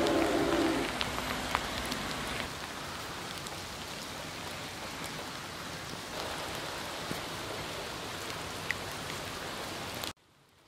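A steady rain-like hiss with scattered faint ticks, and a low hum that fades out about a second in. The hiss cuts off abruptly about ten seconds in.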